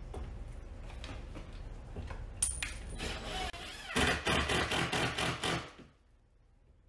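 12-volt cordless impact driver driving a screw through the ceiling drywall into a wooden furring strip: after a few seconds of low handling noise, about four seconds in comes a burst of rapid hammering lasting under two seconds, which stops abruptly.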